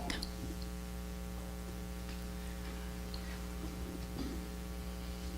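Steady electrical mains hum with a faint buzz, under quiet room tone.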